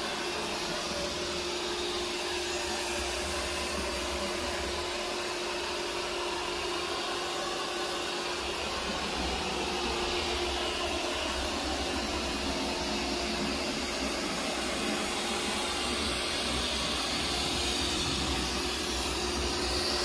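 Realme TechLife robot vacuum running at Max suction: a steady whir from its suction fan with a constant hum, growing slightly louder near the end.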